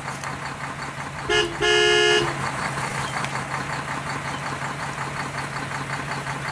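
Battery-powered toy backhoe loader whirring steadily. About a second and a half in, a horn toots twice: a short toot, then a longer, louder one.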